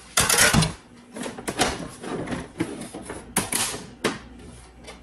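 Plastic housing panels of a De'Longhi Magnifica ESAM3300 espresso machine being slid back and unclipped by hand. A scraping rattle at the start is followed by a series of sharp clicks and knocks, the loudest about three and a half seconds in.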